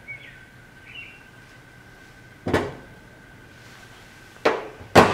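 Hard plastic mold pieces being set down on a hard surface: three sharp knocks, one about halfway through and two close together near the end, the last the loudest.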